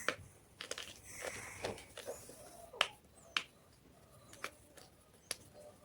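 White gym chalk crunching: a run of sharp, irregular cracks and snaps, the loudest about three seconds in.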